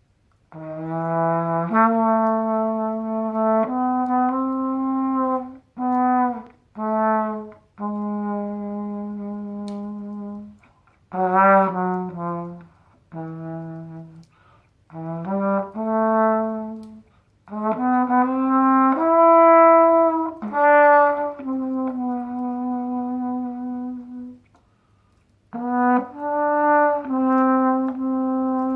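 Trumpet improvising a slow blues in the low register, playing long held notes and short phrases with brief breaks between them, with a few notes slid into.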